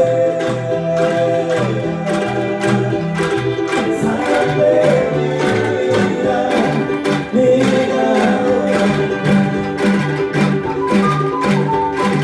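Live ensemble music with a steady rhythm of strummed or shaken chords, a stepping bass line and a held melody line that bends between notes.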